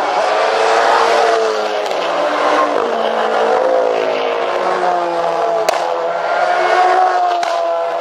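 Several GT race cars approaching and passing at racing speed, their engine notes overlapping and slowly rising in pitch as they accelerate. There is one sharp click a little past the middle.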